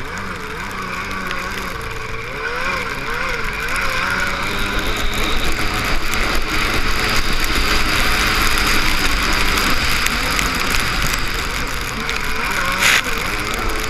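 Jet ski engine running at speed, its pitch rising and falling over the chop, with a loud rush of wind and water spray. A sharp slap comes near the end.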